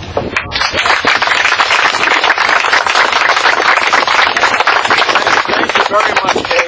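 Audience applauding: many hands clapping in a dense crackle that starts about half a second in and carries on steadily.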